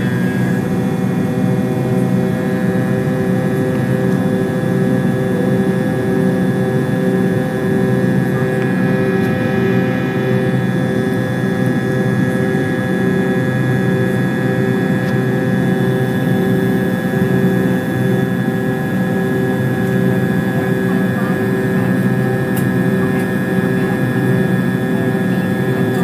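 Jet airliner's engines heard from inside the passenger cabin in flight after takeoff: a loud, steady drone with several steady whining tones over a low rumble.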